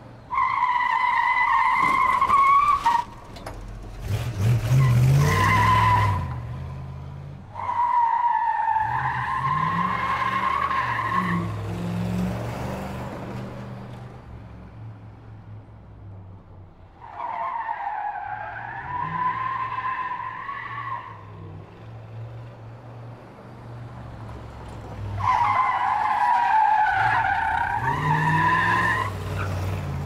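Car tyre-screech sound effects: four long skidding squeals of two to four seconds each over a low engine rumble, with a harsher noisy burst about four seconds in.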